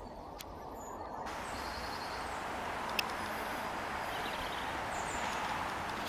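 Steady, even rushing outdoor background noise, with faint bird chirps early on and a single sharp click about three seconds in.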